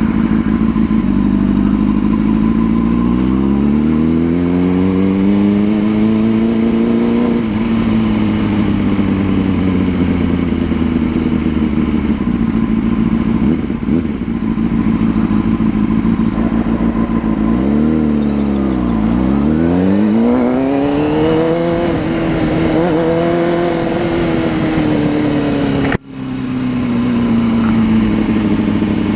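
Honda CBR600RR sport bike's inline-four engine under way, rising in pitch as it accelerates, then dropping and easing down to a low note before climbing again. The sound cuts out for an instant near the end.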